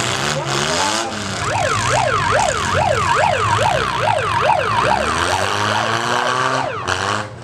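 Emergency siren sounding over running engines: a rising wail, then a fast up-and-down yelp of about three sweeps a second for a few seconds, then back to a slower wail.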